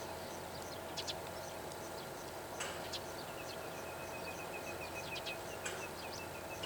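Meadow bunting giving its short, sharp 'chi-chi' call notes, a few times with gaps between them. This is its contact or alarm call, not its song, perhaps given in alarm at nearby birds.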